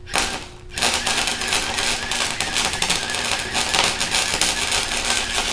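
Electric arc welding on a mini bike's frame: a short spurt of arc right at the start, then, about a second in, a steady crackling, sizzling arc that keeps going.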